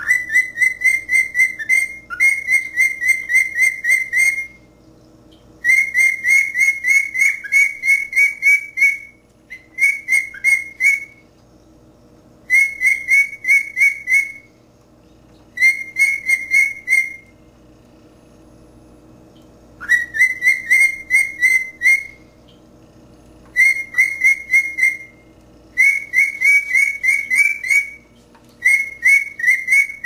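Pet cockatiel whistling its learned song: quick runs of clear, repeated high whistle notes, in about nine phrases of one to four seconds each with short pauses between.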